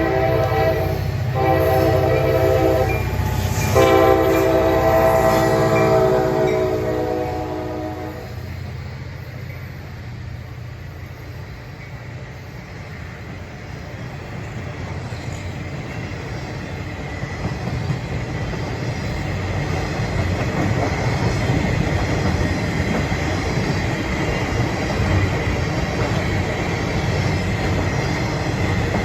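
CSX SD40-2 locomotive's horn sounding a chord, broken twice briefly and cutting off about eight seconds in, over the rumble of its EMD 16-cylinder two-stroke diesel. Then the loaded rail train rolls by with steady wheel-on-rail noise that grows louder toward the end.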